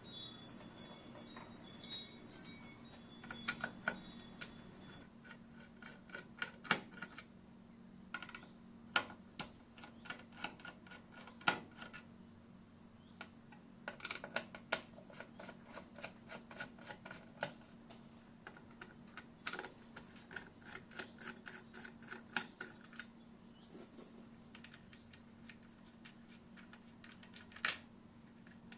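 Irregular clicks, taps and light metallic clinks from hands working on a metal PC case, removing the expansion-slot covers and fitting a graphics card, with a brief ringing clink in the first few seconds. A faint steady hum runs underneath.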